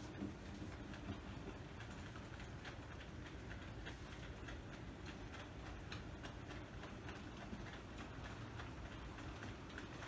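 Faint, irregular clicking and ticking of a model train running on the layout's track, over a low steady rumble.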